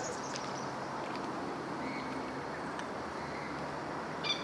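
Outdoor wetland ambience: a steady background hum with small-bird chirps that fade out within the first second and a few faint ticks. Near the end a high, steady whistling note begins.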